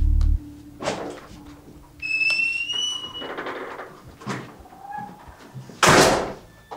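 Door sounds: scattered clicks and a short high squeak, then a loud door shut about six seconds in. A low music drone cuts off just at the start.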